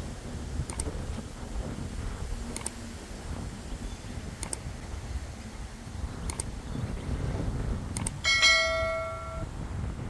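Sound effects of a subscribe-button overlay: five quick double mouse clicks about two seconds apart, then a bright notification bell chime ringing for about a second near the end.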